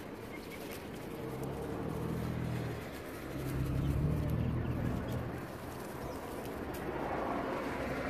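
A dove cooing: two low, drawn-out coo phrases, the second one louder.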